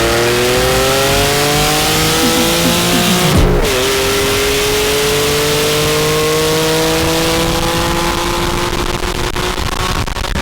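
Truck engine at full throttle, accelerating hard with its pitch rising, then a short drop as it shifts up a gear about three and a half seconds in, after which it climbs slowly again and holds near the end.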